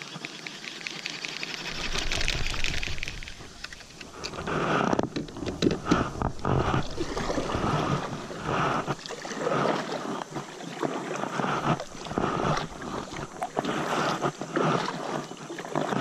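Kayak paddle strokes splashing and dripping in river water, about one stroke a second, beginning a few seconds in.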